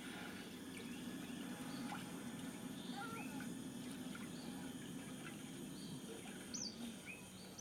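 Scattered short, high chirps and whistles, typical of smooth-coated otter contact calls, played through a television over a low steady hum.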